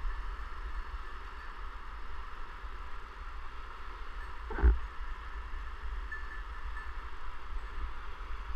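Steady rush of a whitewater river, with a low rumble underneath and a single knock about four and a half seconds in.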